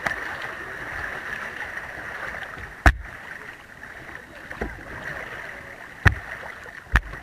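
River water rushing and splashing around a kayak being paddled, louder over the first three seconds. Three sharp knocks on the kayak: one about three seconds in and two close together near the end.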